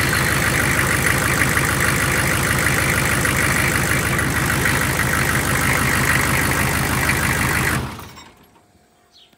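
GM 6.5L turbo-diesel V8 idling with a steady diesel clatter, then shut off a little before the end, dying away within about half a second. The owner finds no blow-by from this engine.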